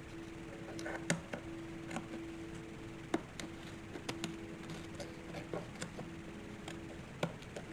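Scattered light clicks and taps at irregular moments as hands work inside a small wooden trunk, pressing down its glued paper lining, over a steady faint hum.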